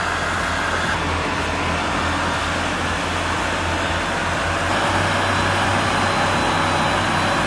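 Heavy vehicle engine running steadily with a low hum, its sound shifting slightly about five seconds in.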